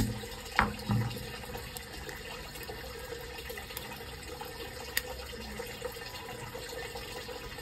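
Steady rush of running water, with a sharp knock about half a second in from a stone pestle brought down on crab shell against concrete, and a faint click later on.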